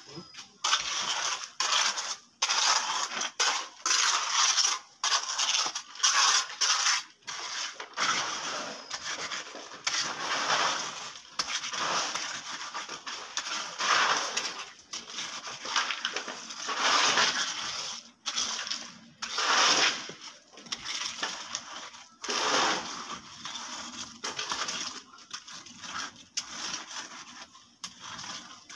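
Hand float scraping and rubbing over wet, gritty concrete in repeated strokes of about a second each, with short pauses, as a freshly poured slab is smoothed.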